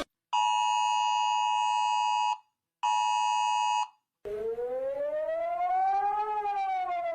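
Emergency alert alarm sounds. First a steady electronic alarm tone of several pitches sounds twice, about two seconds and then about one second, with a short gap between. Then a siren slowly rises in pitch and falls again.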